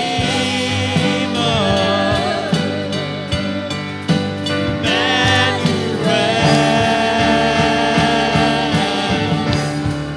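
Live worship band and singers performing a congregational worship song, with a long held sung note on the word 'Redeemer' wavering in vibrato over steady accompaniment.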